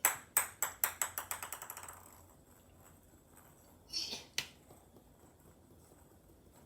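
A small toy ball bouncing on a hard surface, the bounces coming quicker and fainter until it settles after about two seconds. About four seconds in there is a brief rustle and a single tap.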